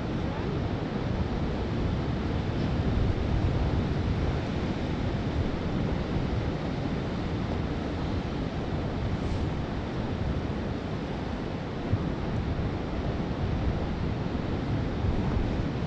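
Ocean surf washing steadily, mixed with wind buffeting the microphone: an even, unbroken rushing noise that is heaviest in the low end.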